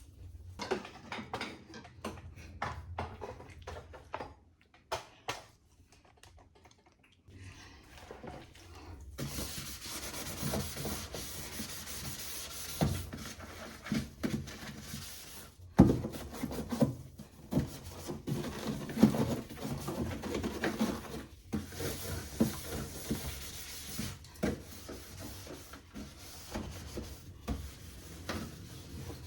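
Rubbing and scrubbing during fridge cleaning, with scattered knocks and clatters of shelves and containers being handled. A steady rubbing hiss sets in about nine seconds in.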